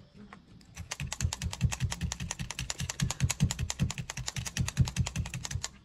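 Multi-needle felting pen stabbing wool into a cloth-covered foam felting base, a fast, even run of ticks that starts about a second in and goes on at several strokes a second.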